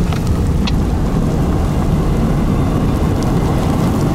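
Storm wind buffeting the microphone in a steady, loud low rumble, with rain noise and a few sharp ticks of raindrops striking the car.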